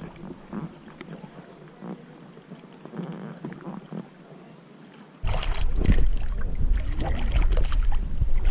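Paddle strokes from an inflatable dinghy: soft irregular splashes and knocks. About five seconds in, a sudden loud rush of water churning and splashing right at the microphone, with a deep rumble.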